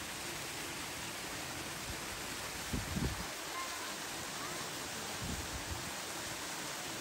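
Steady rushing of water moving in a polar bear enclosure's pool, with a brief low thump about three seconds in and a softer one a little after five seconds.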